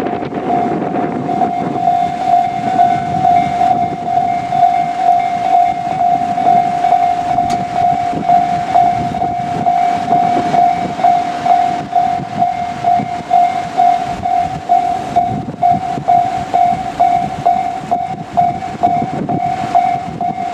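Japanese level-crossing warning bell ringing in a steady, even rhythm, a little under two strokes a second, over the rumble of a JR Kyushu electric train running past on the rails.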